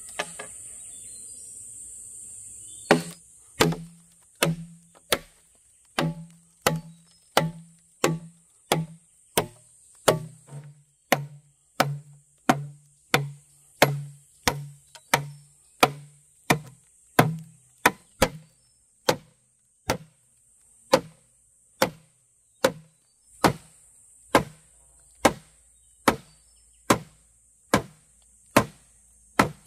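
Steady chopping: a blade striking a wooden chopping board about one and a half times a second, starting about three seconds in. Each stroke is a sharp knock with a dull thud.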